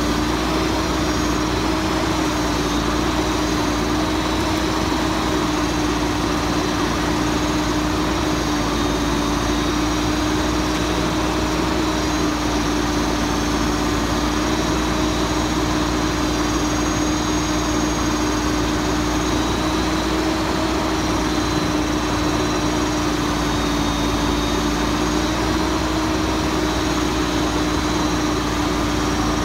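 Mack Granite garbage truck's diesel engine running steadily with a constant droning tone, with no rise or fall in speed, while it powers the truck's crane.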